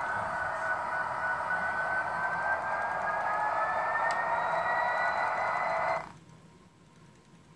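A model diesel locomotive's TCS WOW 101 sound decoder sounding a held multi-tone air horn through its small speaker, one note slowly rising in pitch. It cuts off suddenly about six seconds in, leaving only faint ticking.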